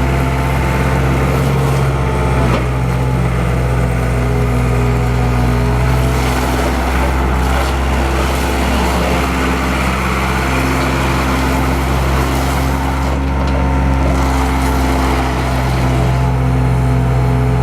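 Bobcat skid steer engine running steadily, its pitch shifting slightly a couple of times.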